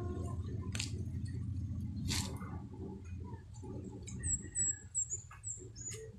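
Star apples with their stems and leaves being handled in a plastic chair, giving a couple of sharp knocks over a low rumble that fades by halfway. About four seconds in, a bird gives a quick run of about six short, high chirps.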